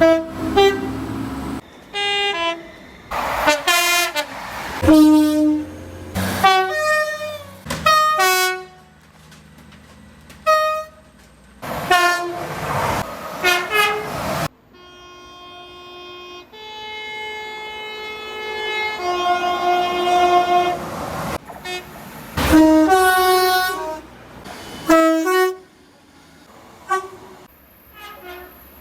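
Train horns sounding in a run of separate clips cut one after another: a string of short blasts and toots at differing pitches, and in the middle one long horn held for about six seconds, its chord shifting to a different set of notes partway through.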